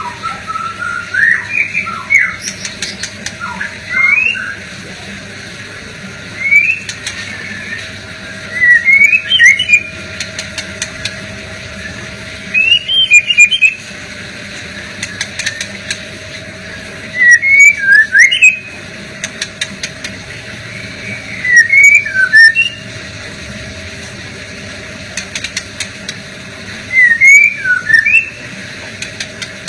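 Male white-rumped shama singing: short loud phrases of quick whistled glides and chirps, one every three to four seconds. Runs of sharp clicks fall between the phrases.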